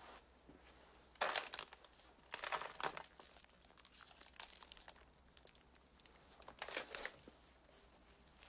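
Crinkling, tearing handling noise as a crumbly frosted cake is broken apart by hand. It comes in three short bursts, the first, about a second in, the loudest.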